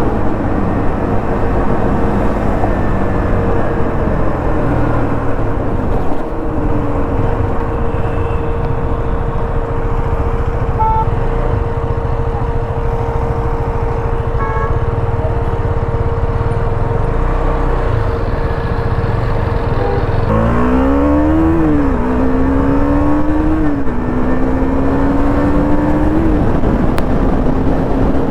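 KTM motorcycle engine on its stock exhaust, running steadily. About two-thirds of the way through, the revs climb and drop back three times in a row, then hold steady at a higher pitch.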